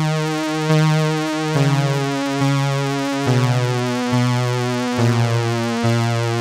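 Electronic synthesizer music: a slow sequence of sustained synth notes, each held for close to a second before the pitch steps to the next, with no beat.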